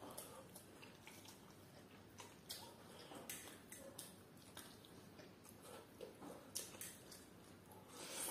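Faint close-up eating sounds: chewing and wet mouth and lip smacks from grilled fish and rice eaten by hand, as a string of short, irregular clicks, a little louder near the end.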